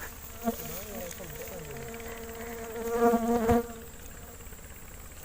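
A flying insect buzzing close to the microphone, its hum wavering up and down in pitch, then holding steadier and growing loudest about three seconds in before it fades.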